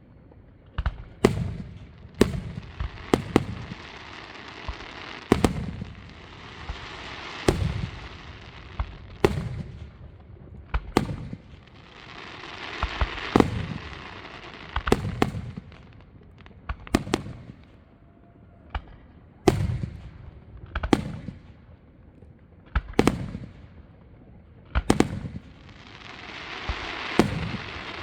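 Aerial fireworks display: a steady run of sharp shell bursts with booms, and stretches of long crackling that swell and fade between them.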